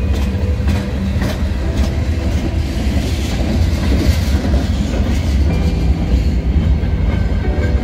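Freight train of hopper cars rolling past close by: a steady low rumble of steel wheels on the rails, with clicks as the wheels cross rail joints.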